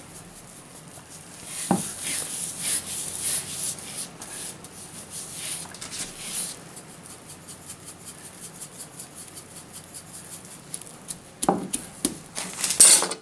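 Gloved hands rubbing salt and spice rub into the skin of a pork roast on a wooden board, a soft scratchy rustling with crinkling cling film. A single knock comes about two seconds in, and a burst of knocks and crinkles comes near the end.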